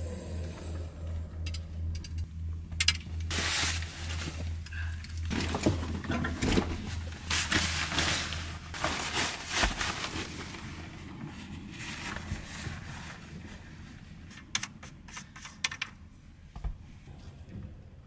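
Gear being handled and rummaged through in the open back of a van: rustling of bags and clothing with scrapes, then a few sharp clicks and knocks later on. A low steady hum runs under the first few seconds.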